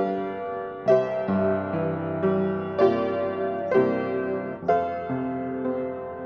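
Solo piano playing slow, sustained chords, a new chord struck about once a second.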